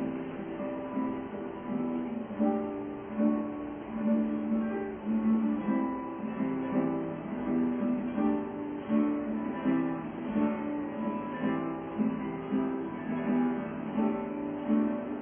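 Acoustic guitar playing a steady, evenly paced run of plucked and strummed notes.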